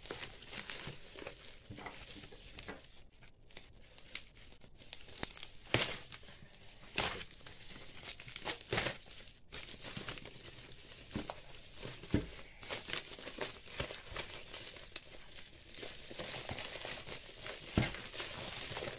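Bubble wrap and a plastic bag crinkling and rustling as they are handled and pulled off an item, with irregular sharp crackles throughout.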